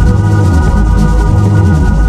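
Music from a DJ mix: sustained organ-like chords held steady over a deep bass line.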